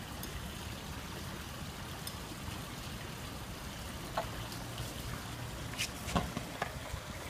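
Steady trickle of water spilling over a garden pond's small waterfall, with a few faint clicks in the second half.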